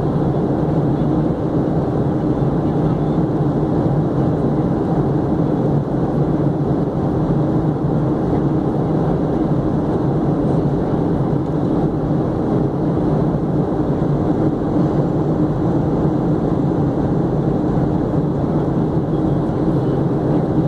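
Steady cabin noise inside a jet airliner on its landing approach: the wing-mounted turbofan engine and rushing air make a constant, even drone with a low hum.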